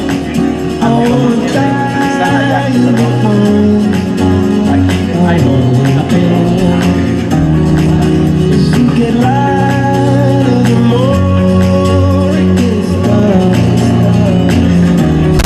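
Upbeat music with singing and a steady percussive beat.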